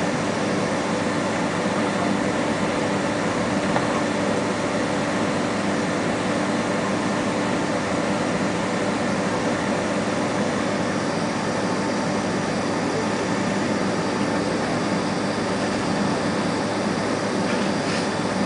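Steady cabin noise of a Boeing 767 on the ground after landing: engine idle and air-conditioning hum, even and unchanging, with a few constant low tones under a wide hiss.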